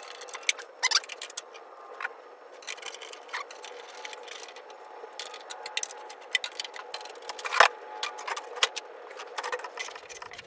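Irregular small clicks, ticks and light scraping of screws being driven by hand with a screwdriver, fastening a plastic dust hood to a thickness planer.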